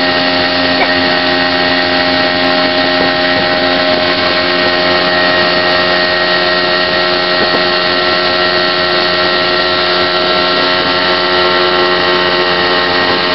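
Mercury outboard motor running at a steady high speed under load while towing a tube, a constant many-toned engine note that does not change in pitch.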